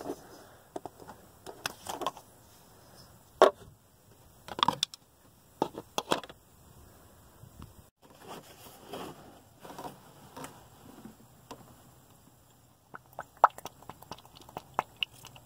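Scattered plastic clicks and knocks as the engine's oil filler cap is unscrewed and a plastic funnel is set in the filler neck. Near the end comes a quick run of small clicks as oil is poured from a bottle into the funnel.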